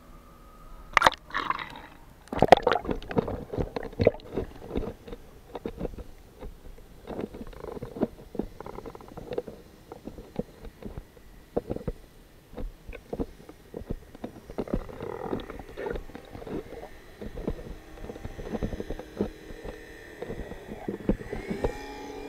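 A camera plunges into seawater with a splash about a second in, then picks up muffled underwater gurgling and crackling as it is held beneath the surface. Faint wavering tones come in near the end.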